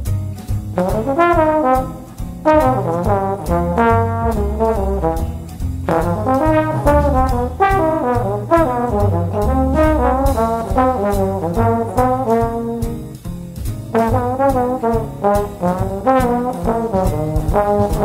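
Slide trombone playing a jazz ballad melody in legato phrases with vibrato and slides, over a backing track with steady drum taps and a stepping bass line.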